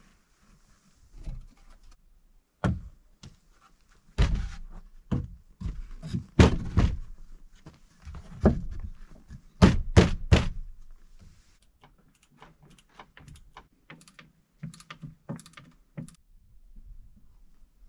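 Wooden thunks and knocks from the timber legs and crossbar of an X-legged trestle frame being worked into place on a plank deck. The knocks come irregularly, with a quick run of three heavy ones about ten seconds in, then lighter taps.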